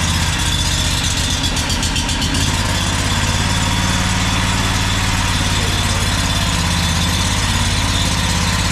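Freshly swapped Predator 670cc 22 hp V-twin engine on a zero-turn mower idling steadily after being fired up.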